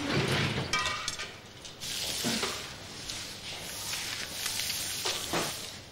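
Dried herbal ingredients rustling and scraping as they are handled, in a few separate strokes, with a brief squeak about a second in.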